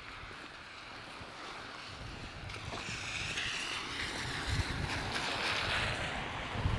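Wind buffeting the microphone, with a rushing hiss that swells from about three seconds in and eases off near the end.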